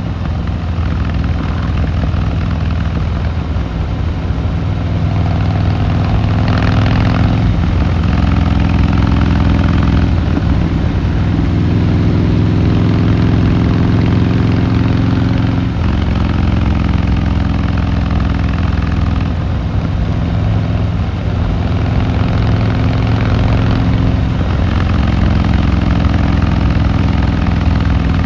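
Harley-Davidson Fat Boy Lo's V-twin engine and exhaust under way on the road. The engine note climbs in pitch and then drops several times, as the bike accelerates through the gears and backs off.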